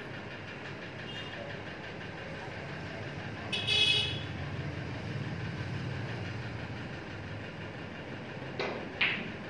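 A vehicle horn toots briefly about midway, over a steady low background hum. Near the end, snooker balls click sharply twice.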